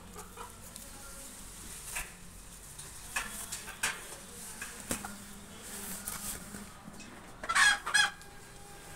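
A chicken clucking, with two loud, harsh calls near the end, over scattered light knocks and scrapes of a ladder being climbed.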